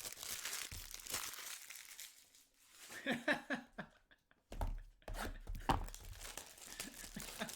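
Trading-card pack wrappers being torn open and crinkled by hand: a long ripping hiss at first, then, after a brief lull, a run of quick crackles as the wrappers are handled.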